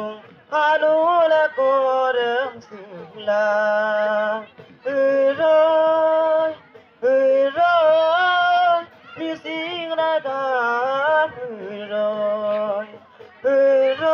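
A singer's voice amplified through a stage PA, singing a slow melody in phrases of long held notes with vibrato, each phrase followed by a short pause.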